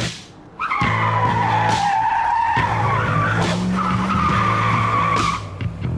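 Car tire-squeal skid sound effect: a long screech starting about half a second in that sags in pitch and climbs back, with a short break partway and a second stretch ending near the end. A steady low hum runs underneath.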